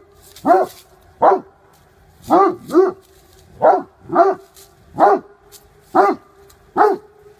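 A dog barking: about nine short barks, each rising and falling in pitch, coming singly and in quick pairs.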